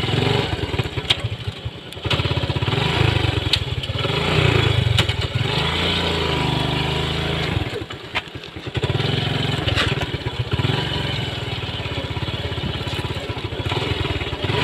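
TVS motorcycle engine running as the bike is ridden slowly over a muddy track, the throttle rising and falling and easing off briefly about two seconds and eight seconds in. Wind rushes over the microphone, with a few sharp knocks from bumps.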